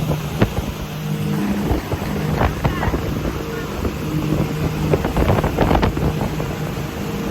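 Motorboat engine running steadily with a low hum, with wind buffeting the microphone. A few brief knocks come through in the middle.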